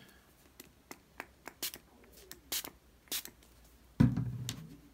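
A cloth dabbed onto a sheet of paper wet with sprayed water, blotting the ink: a run of short, sharp taps and rustles, then a louder thump about four seconds in.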